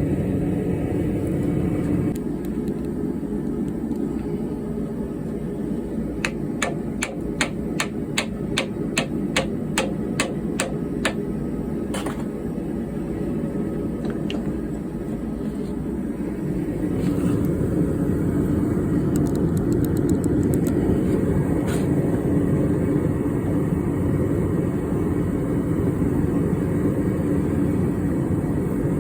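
A run of about fifteen quick hammer strikes, around three a second, then a single strike a second later, over a steady low rumble that gets louder later on.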